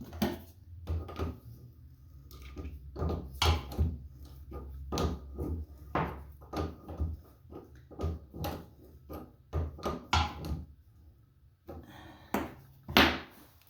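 Irregular knocks, clacks and rustles of hands handling plumbing parts during a toilet water-line installation, with a louder knock near the end over a low hum.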